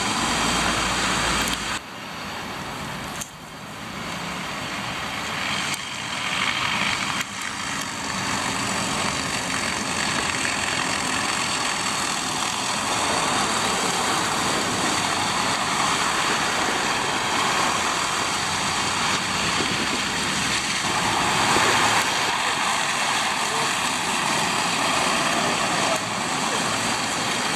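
Street traffic on a wet, slushy road: trucks, a city bus and cars driving past with engine noise and tyre hiss. A flatbed truck passes close by about halfway through.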